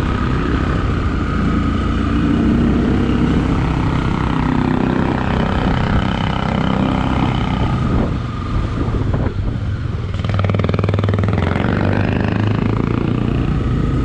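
Motorcycle engine running while riding, its note rising and falling with the throttle.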